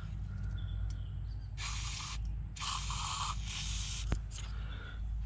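An aerosol spray can hissing in two bursts, about a second and a half in and again near three seconds, aimed at gunked-up deposits in a Mercedes Sprinter's intake area. A single sharp click follows about four seconds in.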